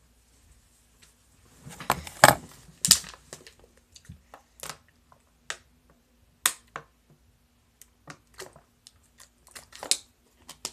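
Plastic fidget spinner being handled and knocked about: a cluster of sharp clicks and knocks about two seconds in, then scattered light clicks, with another knock near the end.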